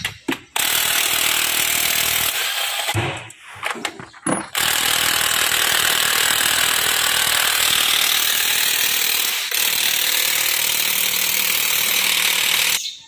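Power wrench running in two long runs on the engine's fasteners: a short one of about two seconds, then one of about eight seconds with a brief dip near its end.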